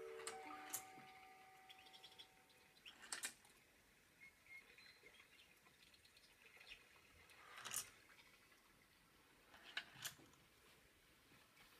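A cot mobile's music-box tune ends, its last notes dying away in the first second or so, then near silence broken by a few faint, short soft noises.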